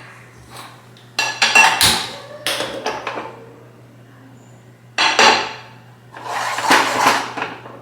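Metal kitchen utensils knocking and scraping against pots and pans: several short bursts of clinks and clatter with ringing, the loudest about a second and a half in and at five seconds.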